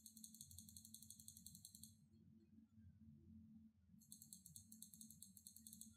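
Near silence: faint room hum, with a faint high, rapidly pulsing hiss for the first two seconds and again for the last two.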